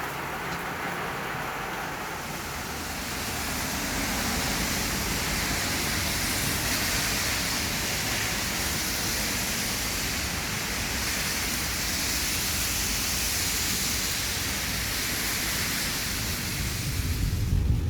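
Steady rain hissing, growing louder about three seconds in and cutting off suddenly at the end.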